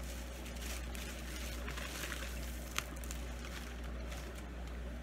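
Plastic fish-shipping bags and packing material rustling and crinkling as they are handled and lifted out of a cardboard box, with one sharp click a little before three seconds in, over a steady low hum.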